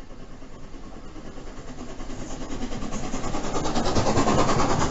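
LNER Peppercorn A1 Pacific steam locomotive 60163 Tornado, a three-cylinder engine, passing with its train. It grows steadily louder as it approaches and draws level about four seconds in, with a rapid, even beat.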